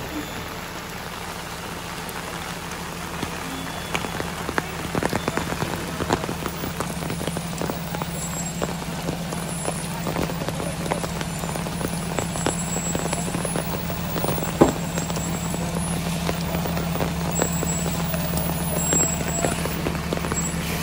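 Heavy rain pattering and dripping, with the steady low hum of a loaded Tata lorry's diesel engine running underneath. One sharp knock stands out about two-thirds of the way through.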